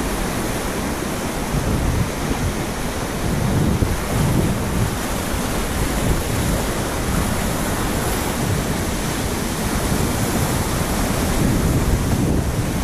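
Whitewater rapids rushing loudly and steadily around a kayak as it runs down the river.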